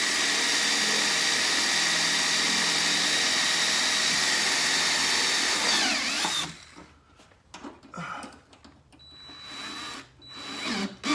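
Power drill running steadily for about six seconds, then winding down, followed by a few short bursts near the end: plausibly driving screws to fix the outlet box into the bus ceiling until it is tight.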